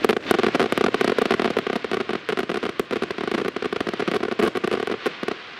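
Fireworks crackling: a dense, rapid run of sharp pops and snaps that thins out and stops a little after five seconds in.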